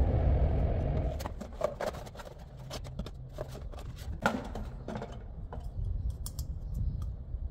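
Scattered sharp clicks and knocks of tools and filter parts being handled during a filter change on a truck, over a low rumble that is loudest in the first second.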